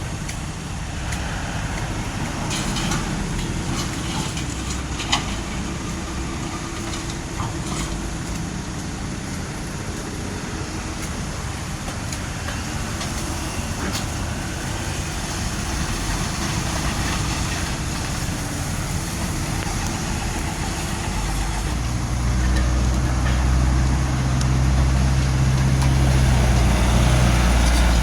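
Heavy diesel truck engine running steadily, then growing much louder and deeper with a strong low rumble about three-quarters of the way through.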